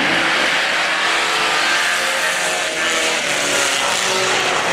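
A pack of Pro 4 compact pickup race trucks racing around a dirt oval, several engine notes overlapping and holding at a steady level.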